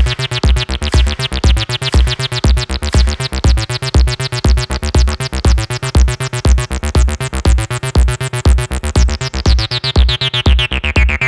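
Electronic dance music with a steady kick-drum beat under synthesizer chords; near the end the high end is swept down and muffled.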